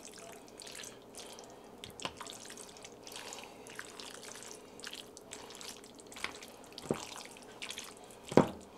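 Spatula stirring cream sauce through spaghetti in a ceramic baking dish: soft wet sounds with scattered taps of the spatula against the dish, the loudest just before the end.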